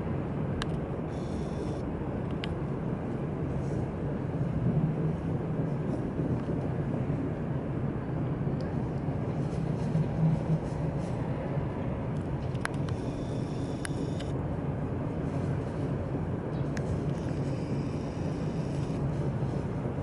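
Steady low rumble of distant vehicles, swelling a little about five seconds in and again about ten seconds in.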